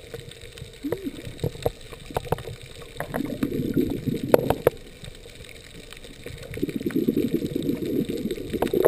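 Scuba diver's exhaled bubbles gurgling from the regulator, heard underwater: one burst of breath about three seconds in and a longer one from past the middle to the end, with faint clicks between.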